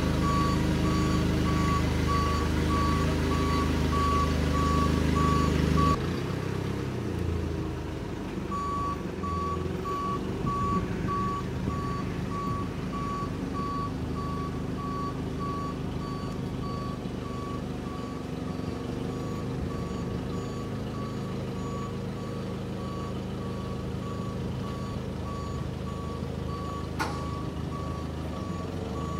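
Forklift backup alarm beeping steadily, about three beeps a second, over the forklift's engine running. Both are louder for the first few seconds. The beeping stops for a couple of seconds, then resumes more quietly, and a single sharp click comes near the end.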